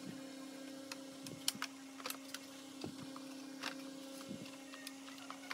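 Plastic parts of a vacuum cleaner's housing being handled and pulled apart, played at triple speed: scattered light clicks and taps over a steady hum.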